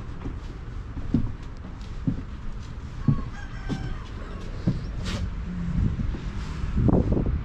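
A rooster crowing once, about a second long, around three seconds in, over scattered low thumps and knocks.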